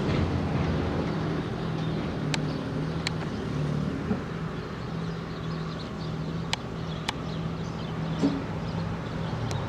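Caterpillar 301.4 mini excavator's diesel engine running steadily, with a few short sharp knocks about two, three, six and a half, seven and nine and a half seconds in.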